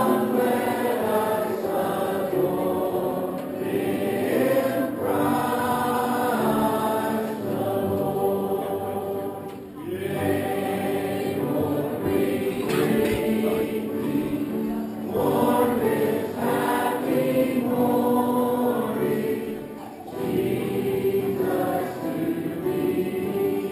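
A church congregation singing a hymn together, in long sung phrases with short breaths between them about ten and twenty seconds in.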